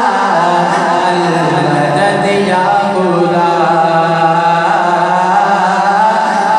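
A man singing a naat (devotional praise poem) solo into a microphone, holding long notes that bend slowly up and down.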